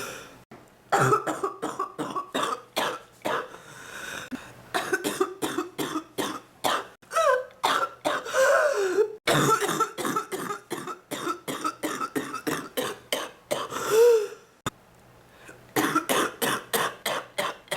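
A woman's deep, wet coughing in repeated fits of rapid coughs, with short pauses between the fits. About fourteen seconds in there is a loud, drawn-out pitched sound between fits.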